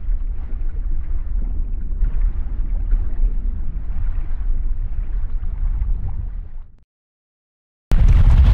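A water splash sound effect with a deep rumble runs for about seven seconds and stops abruptly. After a second of silence, a sudden loud boom hits near the end as the intro music begins.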